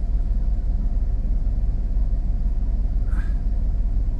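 A steady low rumble at an even level, with a brief faint voice-like sound about three seconds in.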